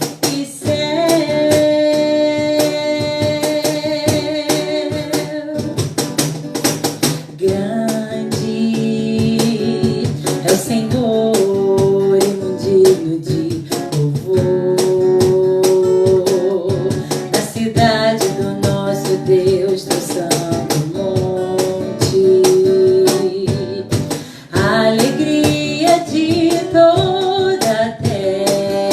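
Live worship music: voices singing long held notes over a strummed guitar, with light percussion keeping a steady beat.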